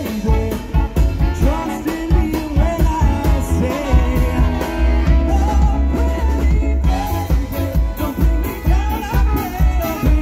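Live swing band playing with a steady beat, a male vocalist singing over the horn section, upright bass and drum kit.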